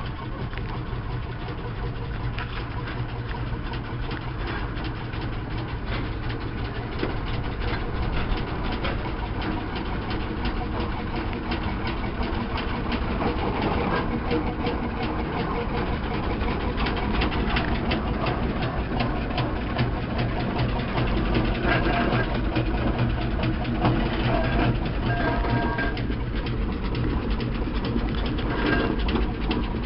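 Steam roller running at low speed, a steady low mechanical rumble with a dense patter of small knocks, growing louder toward the end as it draws close.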